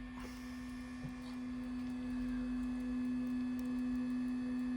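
Steady machine hum holding one low pitch, with fainter higher tones above it.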